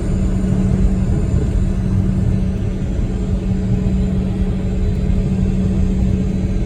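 Steady low rumble with a constant hum inside the cabin of a Bombardier CRJ-200 regional jet, engines running.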